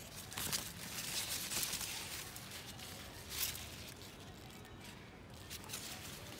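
Long plant leaves rustling and crackling in irregular bursts as they are brushed and pushed aside, loudest about half a second in, through the second second, and again a little past three seconds in.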